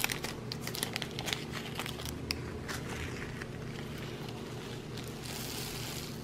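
A small plastic zip-lock bag of round diamond-painting drills being handled and opened: crinkling with many light clicks. From about five seconds in, a steady rattling hiss as the red drills pour into the plastic tray.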